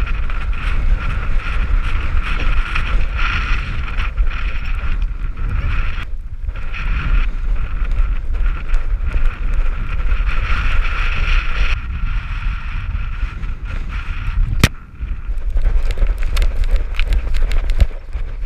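Strong wind buffeting a dog-mounted GoPro action camera's microphone: a steady low rumble with a higher whistle that swells and fades. There is a sharp click about fifteen seconds in and scattered crackles near the end.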